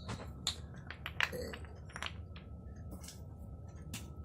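Wooden toy blocks clicking and knocking together as they are handled, about a dozen short sharp knocks at uneven intervals.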